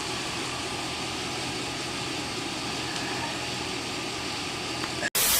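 Steady low mechanical hum under an even hiss, like an idling engine or an air-conditioning unit. About five seconds in it cuts off abruptly into a loud burst of static-like hiss.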